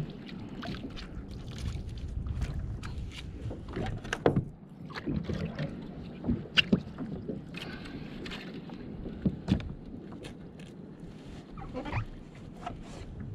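Low wind and water noise around a plastic fishing kayak at sea, with scattered light knocks and clicks as fishing gear is handled aboard.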